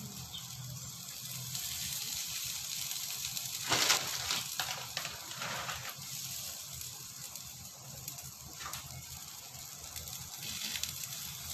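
An egg omelet sizzling steadily in a frying pan, with a low hum underneath and a brief louder rustle about four seconds in.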